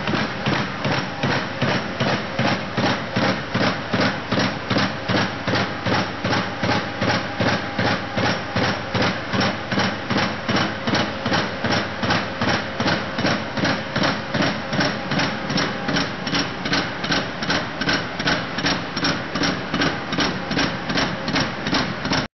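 50-ton Perkins mechanical stamping press running continuously, its ram striking in a steady rhythm of about two strokes a second over the even hum of the machine.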